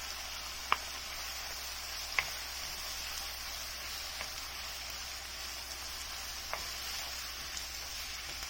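Diced onion, garlic, bell peppers and tomatoes sizzling steadily as they sauté in oil in a pot. A few sharp knocks sound over the sizzle, the two loudest about a second and two seconds in.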